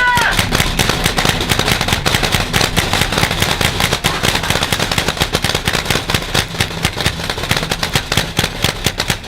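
Paintball markers firing rapidly and without a break, several shots a second overlapping, as from more than one gun.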